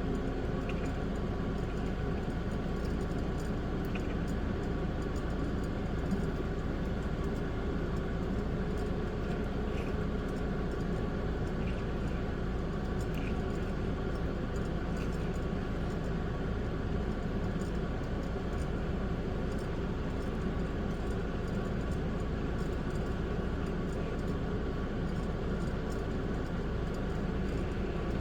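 Steady background hum, with a few faint clicks scattered through it from Lego pieces being handled and snapped together.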